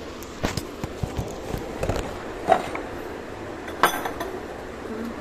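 Takeaway food containers being handled and set down: scattered knocks and light clinks, the sharpest about two and a half and four seconds in.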